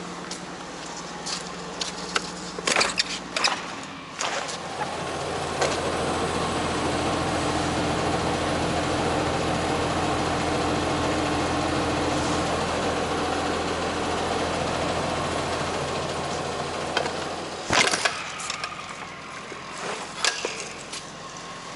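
Renault Premium 280 DXI truck's diesel engine idling, then held at a higher steady speed for about thirteen seconds before dropping back to idle. A few sharp clicks and knocks come near the start and again near the end.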